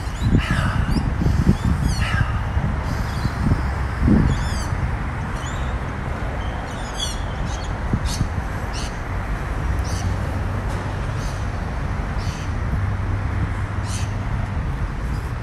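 Birds calling in the open: a few quick descending chirp series and scattered short high calls, over a steady low rumble, with a few low bumps in the first few seconds.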